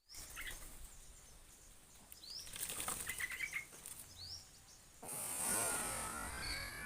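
Faint bird sounds: three short rising chirps and a brief flurry of fluttering wings, then a steady high hiss from about five seconds in.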